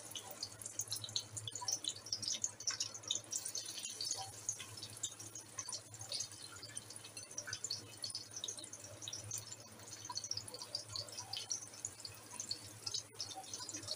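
Sliced red onions frying in hot oil in an aluminium kadhai: a faint, steady crackle of small pops.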